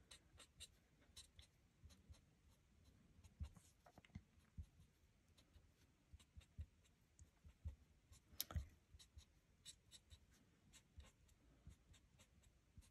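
Faint, irregular light taps and scratches of a Stampin' Blends alcohol marker's fine nib tip on cardstock while small details are coloured in, with one slightly louder tap about eight seconds in.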